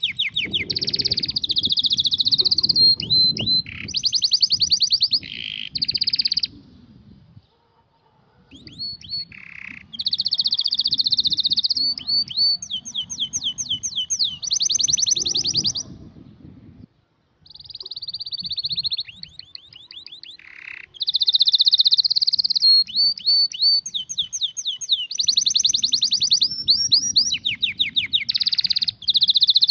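Domestic canary singing: long phrases of fast, high trills and repeated sweeping notes, broken by two short pauses.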